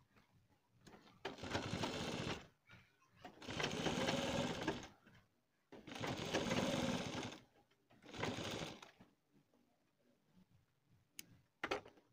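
Black domestic straight-stitch sewing machine running in four short runs of about a second each, stopping between them, as a strip is stitched onto fabric. A few faint clicks near the end.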